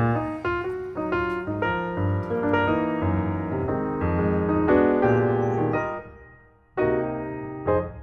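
Background piano music: chords and melody notes played at a steady pace, fading out briefly about three-quarters of the way through before starting again.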